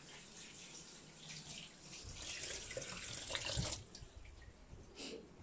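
Water running into a kitchen sink. It builds over a couple of seconds and stops abruptly about four seconds in.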